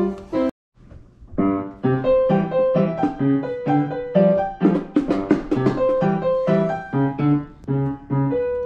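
A child practising a simple tune on an upright piano, single notes struck one after another at an even pace.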